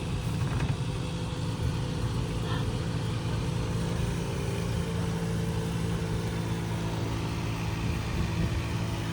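Small electric rental cart driving along, a steady low hum with rolling noise.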